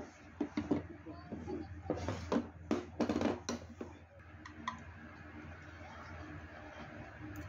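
Metal spoon and chopsticks clicking and scraping against a frying pan as ramen noodles are stirred and lifted. A quick run of sharp clicks comes in the first few seconds, then it goes quieter.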